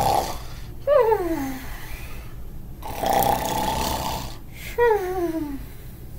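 A man imitating snoring, twice: each time a rasping snore on the in-breath, then a falling, whistle-like glide on the out-breath, the comic mock-sleeping snore.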